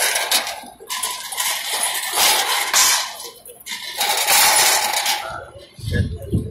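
Metal clattering and scraping in several bursts of about a second each, from a steel police barricade being bumped and shifted at close range.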